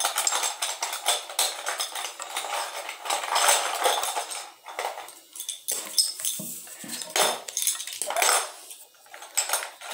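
Small hard plastic pieces tapping, clicking and clattering on a stone countertop as they are picked up and set down one by one, an irregular run of light knocks and clinks.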